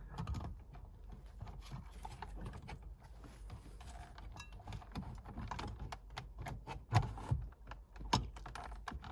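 Scattered small plastic clicks and taps as a steering column switch module (indicator stalk, cruise control and electronic gear selector unit) is handled and fitted back onto the steering column, with two sharper knocks about seven and eight seconds in.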